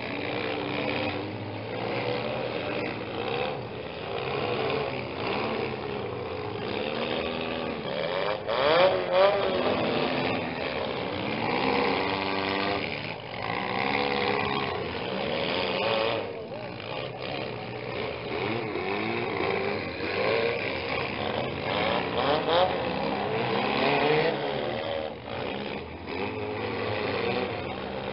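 Several demolition derby mini cars revving their engines hard, the pitch rising and falling as they drive and ram each other. Sharp crash impacts of car bodies colliding, with the loudest about nine seconds in and again a little past twenty-two seconds.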